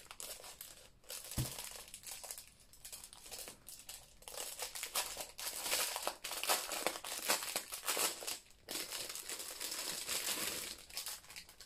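Thin clear plastic bag crinkling and rustling in irregular bursts as it is handled and pulled open, busiest in the middle, with one soft low bump about a second and a half in.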